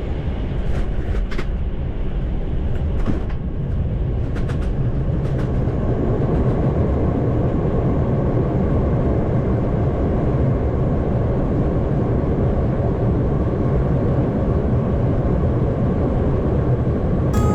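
Airbus A319 touchdown and landing roll heard inside the cabin: a loud, steady rumble of wheels on the runway and engine noise, with a few sharp clicks and rattles in the first few seconds. The rumble grows a little louder about six seconds in.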